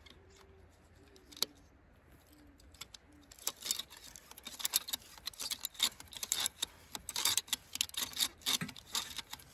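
Ratchet-style facer on a hand-operated butt fusion jig being worked to face the end of a polyethylene gas pipe: rapid, irregular clicking that starts about three and a half seconds in, after a quiet start with a single click.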